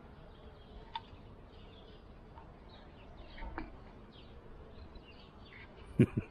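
Cat's head and fur bumping and rubbing against the phone's microphone, giving a few loud, dull thumps near the end, over faint bird chirps.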